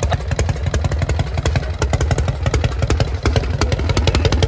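Harley-Davidson chopper's V-twin engine idling loudly up close, a fast uneven train of exhaust pulses.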